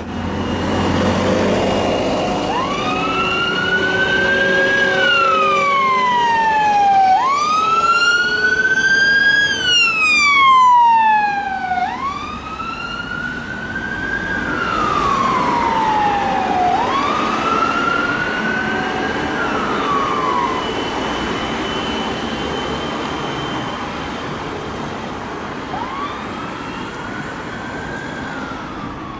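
Emergency vehicle siren sounding a slow wail, each cycle rising quickly and falling slowly over about four to five seconds. It grows louder, then fades as the vehicle moves away, over engine and road noise.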